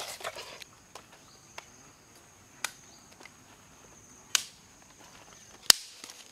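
Sharp wooden knocks at irregular intervals: a wooden stick striking wooden stakes set in the ground. The last knock, about five and a half seconds in, is the loudest.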